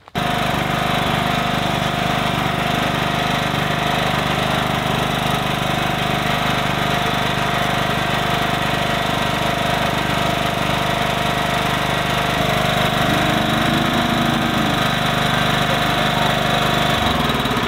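Small garden tractor's engine running steadily under load as it drives over a muddy bank.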